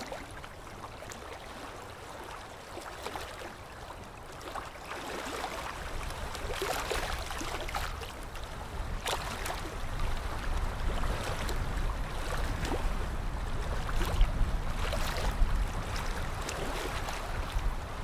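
Open-sea waves sloshing and breaking, a steady wash of water that grows louder from about five seconds in, with a deep rumble underneath in the second half.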